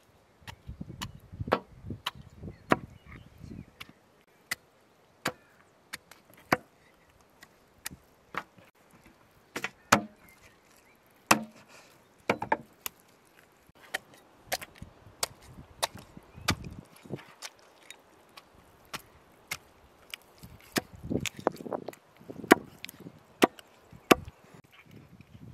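Cleavers chopping raw chicken on wooden chopping blocks: a run of sharp, irregular chops, some coming in quick pairs.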